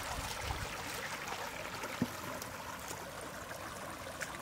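Shallow floodwater running and lapping over a line of rocks as a steady wash, with one light click about two seconds in.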